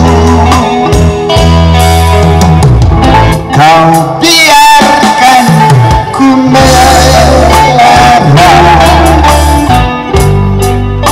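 Live band playing a Malay pop ballad through a PA system: a male vocalist sings over bass guitar, electric guitar, keyboard and drums, loud throughout.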